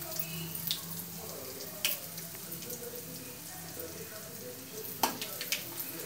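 Hot oil sizzling steadily in a steel kadhai with whole spices for a tadka, with scattered small crackles and pops as the spices splutter. About five seconds in, a metal spoon goes into the pan with a few sharp clicks and stirs.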